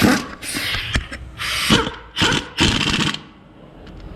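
A 3/8-inch impact gun running bolts down in about five short bursts, its motor pitch rising and falling in each burst.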